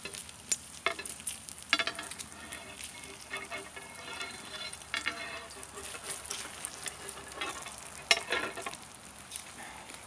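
Bacon weave sizzling and popping in its grease on a hot griddle. Now and then a sharp click or clink is heard as a wire grill rack is slid over the bacon and set against the griddle.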